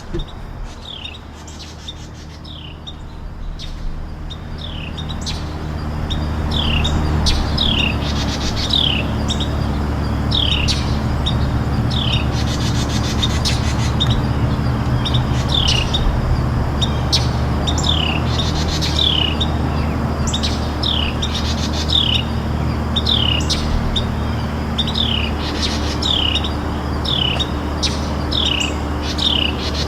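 A bird repeating a short, downward-slurred chirp about once a second, over a steady low mechanical hum that swells in during the first few seconds.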